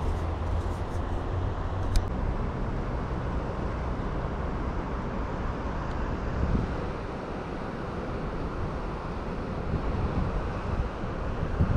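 Wind blowing across the microphone, a steady rushing noise, with a faint low hum that fades out about two seconds in, where there is a single sharp click.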